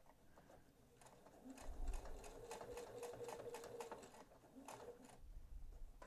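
Domestic sewing machine stitching, faint: a run of rapid needle strokes over a steady motor hum, starting about a second and a half in and stopping shortly before the end. It is sewing over the beginning of the seam by about half an inch to finish the top-stitching around layered quilted cotton.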